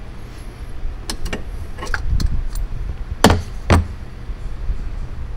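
A few short clicks and knocks, then two louder thumps about half a second apart a little past the middle, over a steady low rumble: parts and covers being fitted in the final assembly of a jet ski's engine bay.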